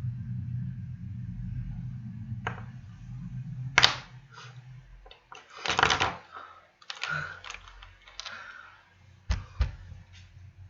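Close-up clicks, taps and rustles from handling lipstick tubes and their caps, irregular and sharp, with a low rumble fading out about four seconds in.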